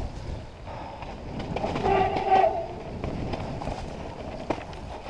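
Mountain bike rattling down a wet, muddy forest trail, with knocks from roots and rocks, and a brief squealing honk from the brakes about two seconds in.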